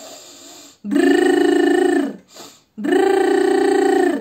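A woman voicing a long, loud, buzzing 'rrr' twice, each about a second and a half, with her tongue held up at the sides by two cotton swabs: a demonstration of the 'mushroom' speech-therapy exercise for eliciting the rolled R. A soft breath in comes before the first.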